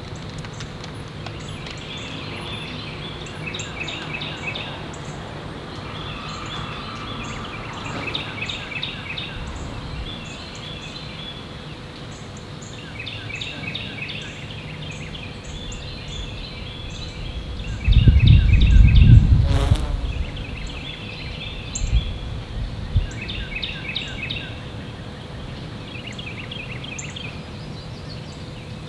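Small songbirds chirping in short repeated trilled phrases, on and off throughout. About eighteen seconds in, a loud low rumble lasts about two seconds and ends in a sharp click.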